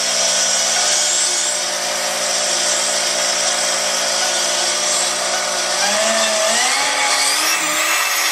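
Carbide 3D trim router running unloaded on a CNC gantry with a steady motor whine, starting at its lowest speed. About six seconds in its speed is dialled up and the pitch rises over a second or so, then holds higher.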